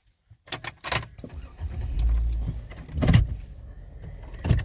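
Vehicle interior sounds: clicks and a jingle of keys, then a low engine rumble comes in about a second and a half in, with a sharp knock near the middle and another near the end.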